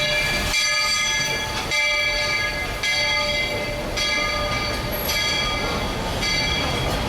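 Steam locomotive's bell ringing, about one stroke a second, each stroke sounding a ringing stack of tones, over the low rumble of the train.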